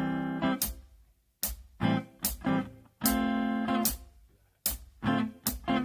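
Guitar strumming the A minor 7 to D minor 7 chord progression in a syncopated rhythm: short clipped stabs alternate with chords held for about a second, with brief silences between the groups.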